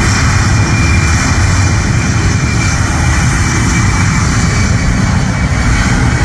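Boeing C-17 Globemaster III's four Pratt & Whitney F117 turbofan engines running at takeoff thrust during the takeoff roll: a loud, steady jet rumble with a thin, steady high whine.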